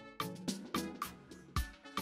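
Background music: light plucked notes in a quick, even pattern, about three a second.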